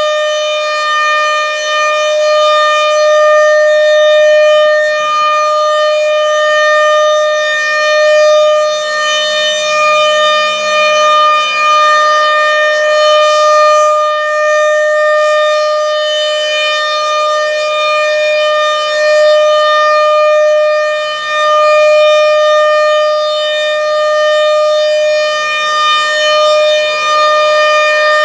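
RM-130 outdoor warning siren sounding a steady alert tone: one loud, continuous note that holds its pitch, swelling and dipping slightly in loudness.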